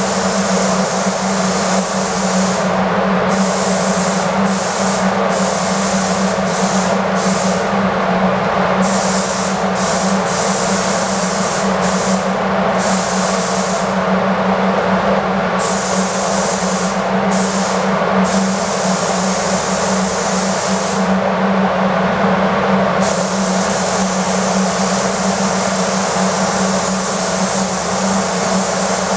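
Gravity-feed spray gun hissing with compressed air as 2k primer is sprayed onto a car wing, the hiss cutting off briefly many times as the trigger is released between passes. A steady low hum runs underneath.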